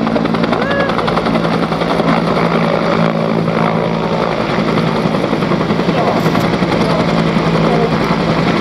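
UH-1 Huey helicopter hovering, its turbine and main rotor running steadily with a rapid, even beat from the blades.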